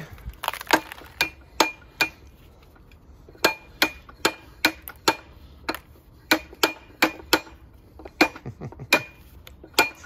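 Irregular sharp metal clanks and clinks, some with a short ring, from the die head and pipe being moved about on a Ridgid 300 pipe threading machine.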